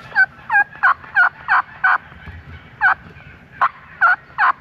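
Turkey yelping: a run of six quick, loud yelps, a pause, then four more.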